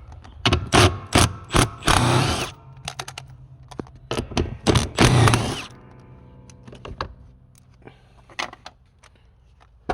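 Hand tools on a car's seat-mounting bolts: two spells of loud clanks and rattles, then a few lighter clicks.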